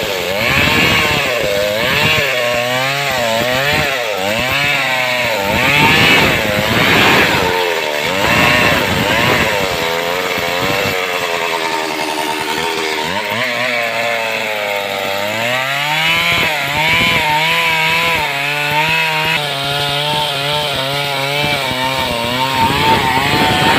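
Stihl two-stroke chainsaw ripping a log lengthwise. The engine pitch wavers up and down in the cut for the first half, then climbs about halfway through and holds steady.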